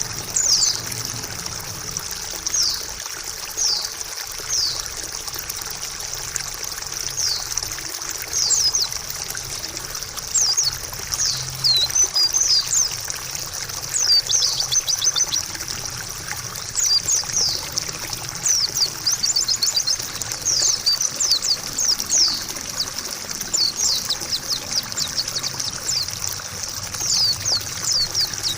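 White-eye (pleci) singing in bursts of quick, high, falling chirps and rapid twittering trills over steady trickling water.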